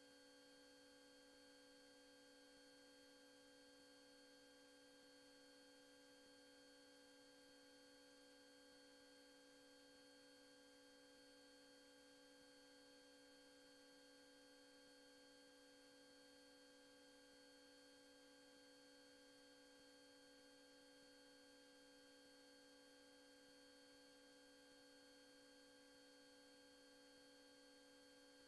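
Near silence: a faint, unchanging electrical hum made of several steady tones over light hiss.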